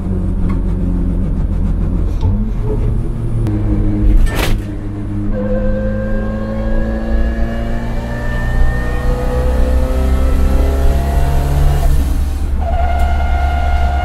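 Toyota AE86's TRD 2-way limited-slip differential whining inside the cabin as the car picks up speed: an airplane-like whine slowly rising in pitch over the engine's low drone. A sharp click comes about four seconds in, and near the end the whine breaks off briefly and comes back at a steady pitch.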